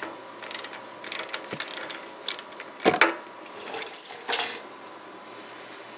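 Socket ratchet clicking and metal clinking as the hydraulic reservoir drain plug on a Scag Tiger Cub mower is broken loose, with a loud knock about three seconds in and another just after four seconds.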